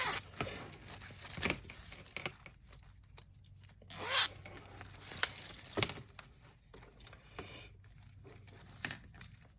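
Metal zipper sliders and their dangling pulls clinking together in scattered light clicks as a slider is pushed along the zipper tape, with a longer scrape about four seconds in.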